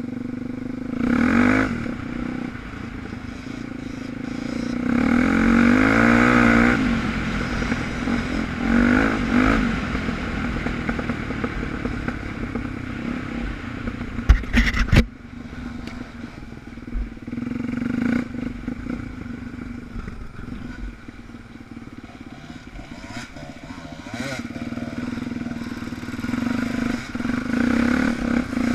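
Suzuki DR350's single-cylinder four-stroke engine running while riding, revving up and easing off several times. A short burst of sharp knocks comes about halfway through.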